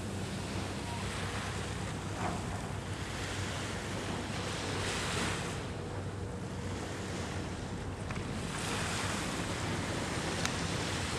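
Wind blowing over the camera microphone in gusts, swelling and easing every couple of seconds over a steady low hum.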